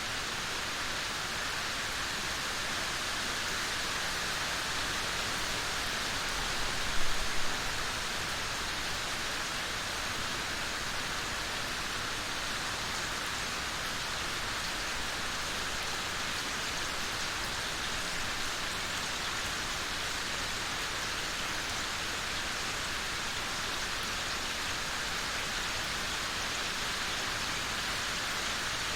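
Steady rain falling, an even hiss of many drops, with a brief louder rush about seven seconds in.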